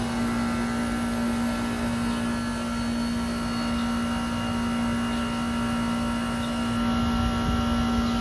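Carrier TECH2000 38YKC heat pump outdoor unit running with a steady, strong hum and a low rumble beneath it.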